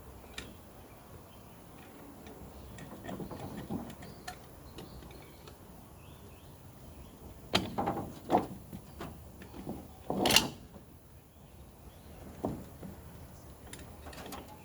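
Turbo 400 transmission parts being handled during teardown: a few scattered clunks and knocks, a cluster of them past the middle and the loudest a little later, with softer scraping between.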